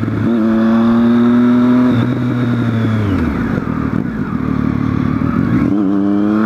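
Triumph Street Triple R's inline three-cylinder engine pulling under throttle, its pitch climbing gently. The revs fall away about three seconds in as the throttle closes, then rise again near the end as it accelerates.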